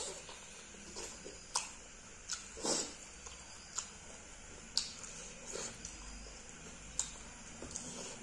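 A person chewing a mouthful of rice and fish curry eaten by hand, with lip smacks and irregular sharp wet clicks.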